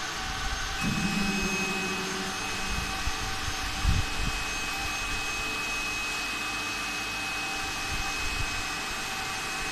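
Hydraulic power unit of a transformer core stacking table, an electric motor and pump, running steadily as its cylinder tilts the table upright; a thin high whine joins about a second in, and there is a brief thump about four seconds in.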